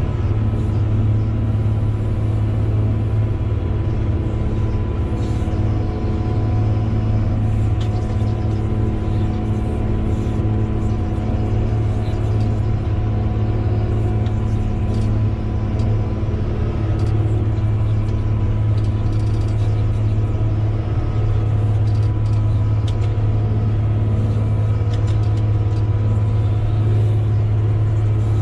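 Crawler bulldozer's diesel engine running steadily under load, heard from inside the cab: a constant low drone with steady tones above it and faint scattered clicks and rattles.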